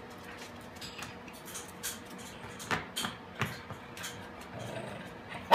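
A few soft, scattered clicks and taps over a faint steady hum, then a small dog barks once sharply right at the end.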